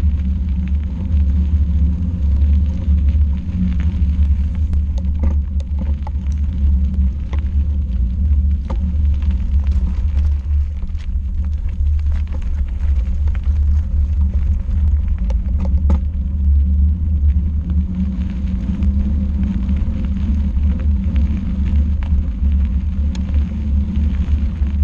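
Riding noise on an action camera mounted on a mountain bike on a gravel trail: a steady low rumble from wind on the microphone and tyres rolling over gravel. Scattered small clicks and rattles run through it.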